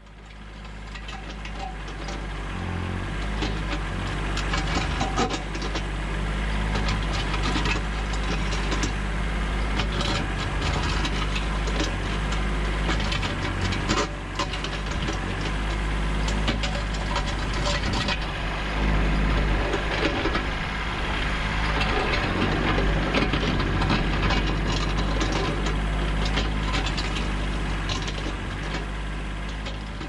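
Kubota B7100 compact tractor's small three-cylinder diesel running steadily to power a Bradco 3265 backhoe, as the steel bucket scrapes and digs through rocky hardpan, with stones grinding and knocking against it.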